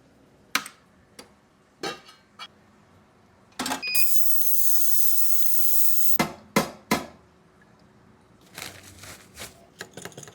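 Sharp clicks and taps from handling small tools and parts, broken by a steady hiss lasting about two and a half seconds, followed by three sharp clicks and a cluster of lighter taps near the end.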